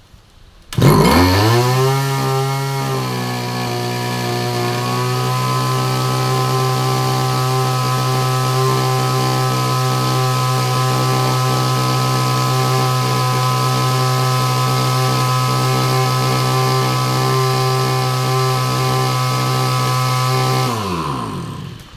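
Two-stroke 'model 328' backpack brush cutter engine starting about a second in and revving up quickly. It holds a steady high speed with its 25 cm cutting line spinning, run without the carburettor 'skep' for full power. Near the end it is shut off and winds down.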